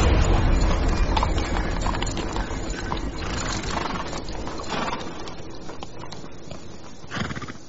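Many horses' hooves clattering on stone paving as a troop of mounted riders moves in, growing gradually quieter, with a brief louder burst from the horses near the end.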